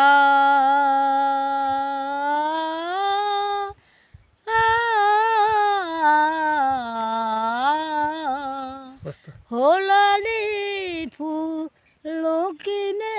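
An elderly woman singing unaccompanied: two long drawn-out notes of several seconds each, the second wavering in pitch. Then come shorter rising and falling phrases with brief breaks between them.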